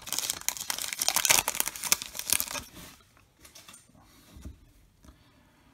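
Trading-card pack wrapper tearing and crinkling as it is ripped open and pulled off, for about the first two and a half seconds. After that come only faint soft rustles of the cards being handled.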